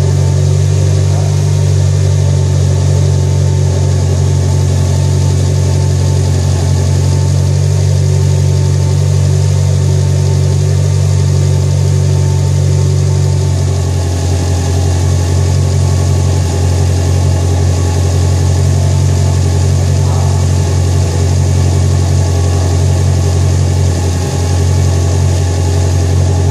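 Mitsubishi Lancer Evolution IX MR's turbocharged 4G63 four-cylinder, fitted with Kelford 272 camshafts, idling steadily on its first start-up with the new cams. About halfway through, the idle note shifts and becomes less even.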